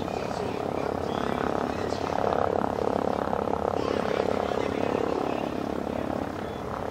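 The twin radial engines of a B-25D Mitchell bomber droning as it approaches, a fast pulsing sound that swells about two seconds in.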